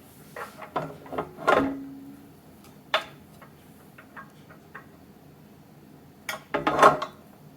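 Knocks and clinks of stand-mixer parts being handled: a flurry in the first two seconds, a single sharp click about three seconds in, and another flurry near the end.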